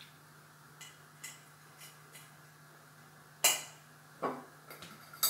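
Kitchen clatter of utensils and glass jars being handled: a few light ticks, then a sharp knock about three and a half seconds in and a second one a moment later, with small clicks near the end, over a faint steady hum.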